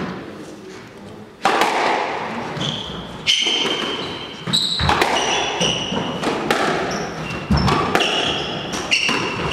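Squash rally: the ball hitting rackets and the court walls in several sharp, echoing hits about a second or two apart. Shoes squeak briefly on the wooden floor between shots.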